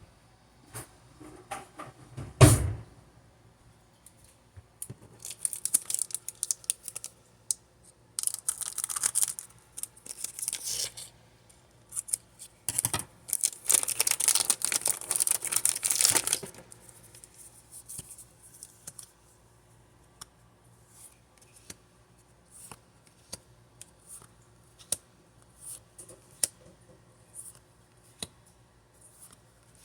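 Pokémon card pack packaging being torn open and crinkled in three long bursts. A single sharp thump comes about two and a half seconds in, and light scattered clicks and handling noises follow the tearing.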